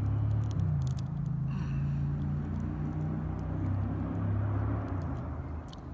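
A motor vehicle engine running nearby: a steady low hum whose pitch rises about half a second in and that fades near the end.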